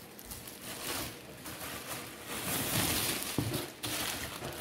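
Plastic carrier bag rustling and crinkling as hands rummage through goods packed in a cardboard box. It is loudest about two and a half to three and a half seconds in, with a light knock near the end.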